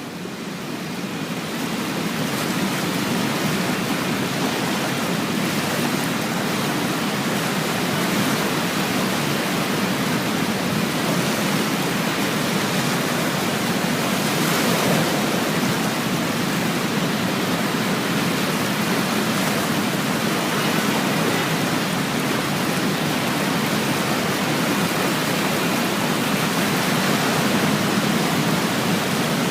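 Waterfall in full flood: a steady rush of water pouring over the falls.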